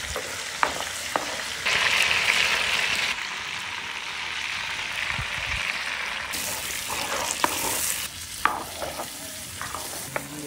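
Chunks of pork frying in hot rendered pork fat in a large black pot, a steady sizzling and bubbling that grows louder for a second or so about two seconds in. A wooden spatula stirs the meat, knocking and scraping against the pot now and then.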